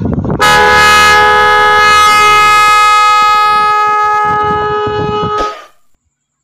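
A pair of 12V Type R snail-type electric horns, high and low tone, driven by a Magic18 digital horn controller, sounding one long, loud, steady blast. It starts about half a second in after a few knocks from handling the wires and cuts off about five and a half seconds in.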